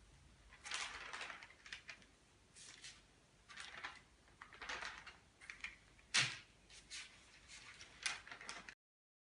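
Faint, irregular short clicks and rustles, about a dozen, with one louder tap a little after six seconds; the sound cuts off suddenly near the end.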